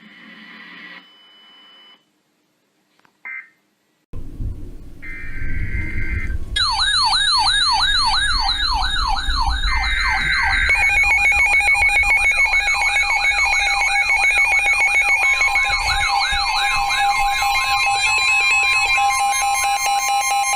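Electronic siren yelping, its pitch sweeping up and down about three times a second, starting about six seconds in over a low rumble. Steady tones join it partway through.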